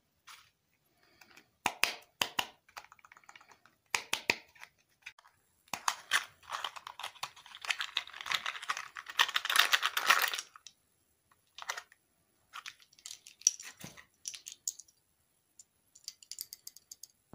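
Small candy-toy packaging handled and opened by hand: scattered crisp clicks and crinkles, then about five seconds of dense crinkling and tearing as a small box is opened, then a few light clicks of small plastic pieces.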